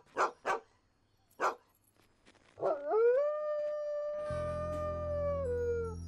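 A dog howling in distress: a few short sharp sounds, then one long howl that rises, holds steady and sinks near the end.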